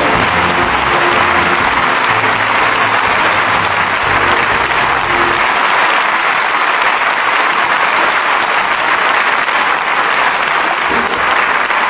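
A large audience applauding steadily, with music underneath that fades out about halfway through.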